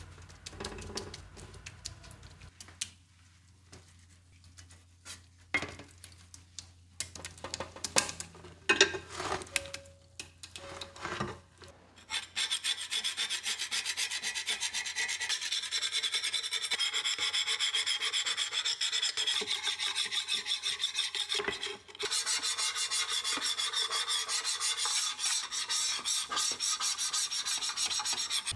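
A few scattered clicks and knocks of parts being handled, then, a little before halfway, fast, steady back-and-forth scraping of an abrasive against rusty metal, pausing once briefly before carrying on.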